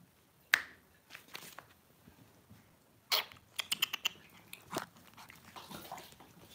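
Lhasa Apso puppies playing and chewing on a tiled floor: scattered sharp clicks and taps, one louder tap about half a second in and a quick run of clicks around three to four seconds in.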